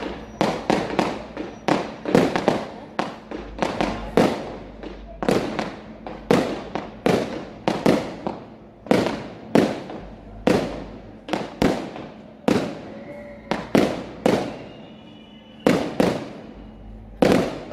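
Fireworks display: aerial shells bursting in rapid succession, one or two sharp bangs a second, each with an echoing tail.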